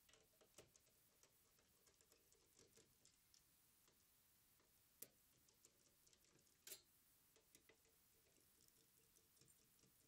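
Near silence broken by a few faint clicks and ticks of a T8 Torx screwdriver turning screws out of a PlayStation 5's frame. The sharpest clicks come about five seconds in and just before seven seconds.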